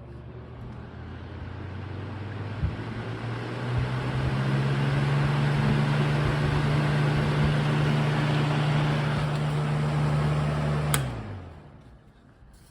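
Lasko box fan running, its motor humming under the rush of air from the pedal blades. It gets louder in two steps early on as it is switched up through the speeds. About 11 seconds in it is clicked off and winds down to quiet. The owner says the motor needs to be torn down.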